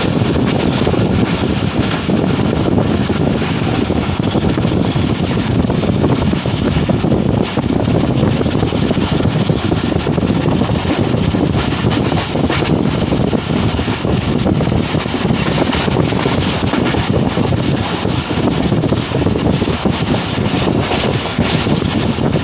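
Passenger train running at speed: a steady rumble and rush of wheels on the track, with faint clicks.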